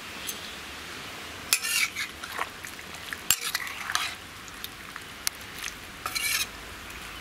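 A spatula stirring chunks of tender jackfruit in a wet curry in an iron kadai, scraping against the pan in three short bouts, over a steady hiss.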